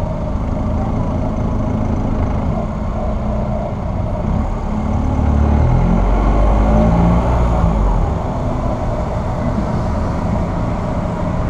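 Car engine heard through a hood-mounted camera, pulling along at low speed, with its pitch rising and getting louder about five seconds in as the car speeds up, over steady road and wind noise.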